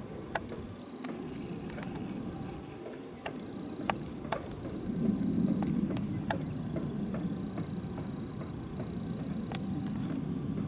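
Wind buffeting the microphone, a low rumble that gusts up about halfway through, with a few scattered sharp clicks.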